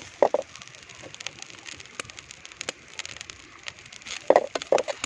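Grated coconut and curry leaves dry-roasting in a pan on a low flame: scattered light crackles and pops, with a few louder short strokes near the start and about four seconds in.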